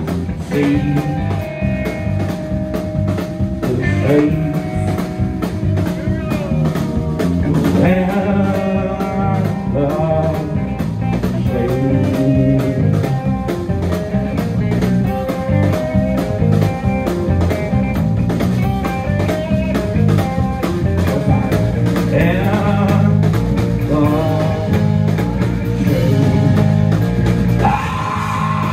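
Live band playing a bluesy rock song: drum kit, electric bass, electric guitar and keyboard, with a singer at the microphone.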